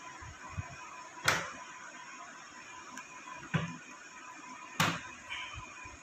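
Three sharp metallic clicks as the clamp ring is worked over a front-load washing machine's rubber door gasket with a screwdriver, the ring snapping into its seat.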